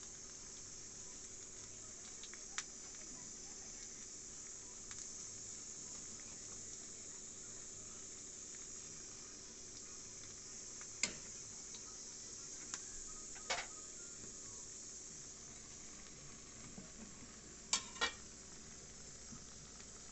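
A pot of chicken broth at a rolling boil gives a steady bubbling hiss. A few sharp metal clinks against the cookware come through it, with two close together near the end.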